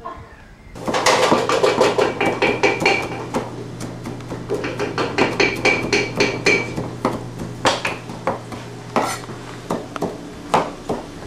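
Knife chopping fresh green herbs on a cutting board: rapid, even knocks of the blade on the board, several strokes a second, starting abruptly about a second in.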